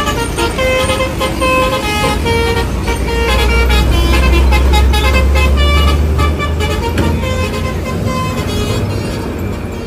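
Many vehicle horns sounding in overlapping short tones at different pitches, over a deep engine rumble that swells in the middle.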